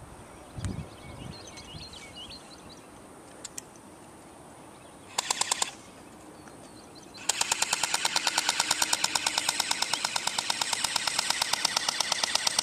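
Airsoft electric guns firing on full auto. A short burst of about half a dozen shots comes around five seconds in. From about seven seconds a long, steady, rapid burst follows without a break.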